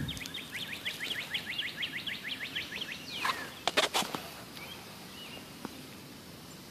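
A bird singing a rapid trill of short falling notes, about seven a second, for nearly three seconds. A couple of sharp knocks follow about four seconds in.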